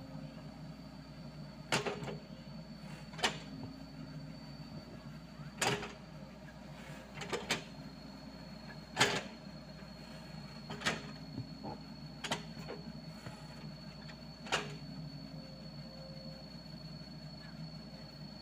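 SANY SY55C mini excavator's diesel engine running steadily while it digs. About eight sharp knocks, one every second or two, come from the bucket and arm working the soil.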